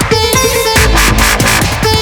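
Electronic dance music with heavy bass and a steady beat, dubstep in style.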